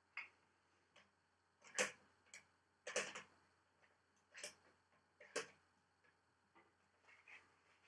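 Scattered sharp clicks and clacks of hands handling a racquet stringing machine's mounting posts and clamps, the loudest about two, three and five and a half seconds in.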